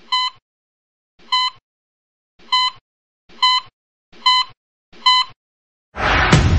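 Heart-monitor beep sound effect: six short, high beeps that come faster and faster, like a quickening heartbeat on an ECG monitor. About six seconds in, a sudden loud burst of noise cuts in.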